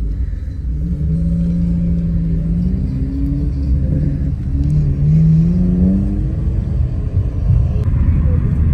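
Car cabin noise while riding in a moving car: a steady low road rumble with the engine note holding and then rising as the car picks up speed, twice.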